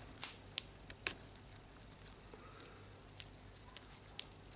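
Light, sharp clicks and taps of small metal parts as the metal cover of a Makita reciprocating saw's blade holder clamp is worked over its pins, trying to align them with the holes. A few separate clicks, the loudest about a quarter second in, another near the end.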